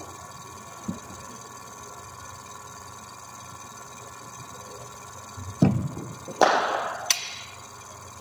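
Cricket bowling machine humming steadily. About two-thirds of the way in comes a heavy thump, then a loud rushing rattle with a sharp crack in it that fades over about a second.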